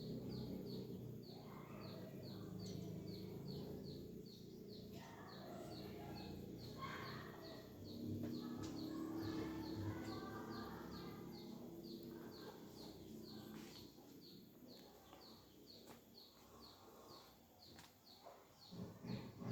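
A bird gives a short, high chirp over and over at an even pace, several times a second, over a low outdoor background hum.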